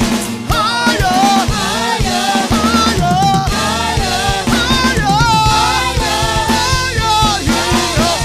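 Live church worship band and singers performing an upbeat gospel praise song: several voices singing over a drum kit and bass with a steady beat.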